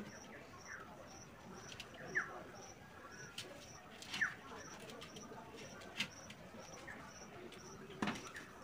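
A few sharp clicks from hand work at the bench, over a faint high chirp repeating evenly a few times a second. Two short falling bird chirps come about two and four seconds in.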